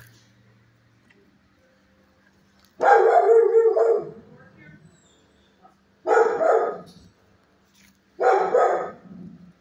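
Dog barking in a shelter kennel: three loud, drawn-out barks about two to three seconds apart, the first the longest.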